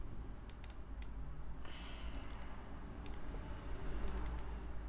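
Computer keyboard keys clicking a few times at irregular intervals as a command is typed, over a steady low hum.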